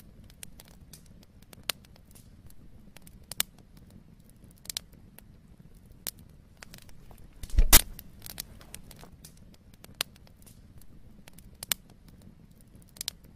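Scattered light clicks and taps at irregular intervals, with one louder knock about seven and a half seconds in, over a faint low hum.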